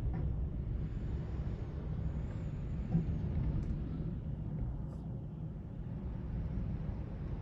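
Strong storm wind: a steady low rumble with a fainter hiss above it, without letup.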